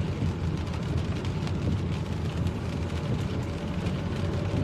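A car being driven in the rain, heard from inside the cabin: a steady low rumble of engine and tyres with a hiss of spray from the wet road.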